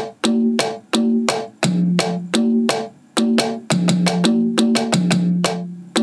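Sampled congas played from the pads of a Roland SPD-SX with drumsticks: a steady rhythm of about three strikes a second, alternating between two drum pitches, with a brief pause about three seconds in.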